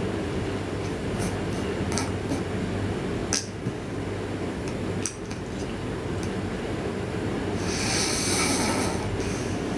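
A sleeping person's snoring breath: a steady low rumble, with one hissing breath about eight seconds in and a few faint clicks.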